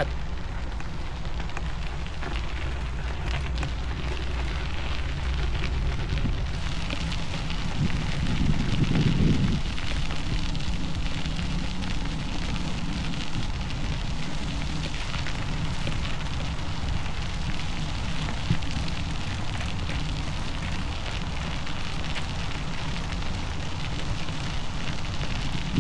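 Bicycle tyres crunching and crackling over a gravel trail, with a low wind rumble. The rumble swells briefly about eight to ten seconds in.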